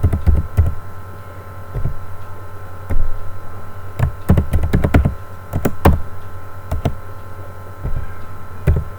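Computer keyboard typing: irregular keystrokes with pauses between them, over a steady electrical hum.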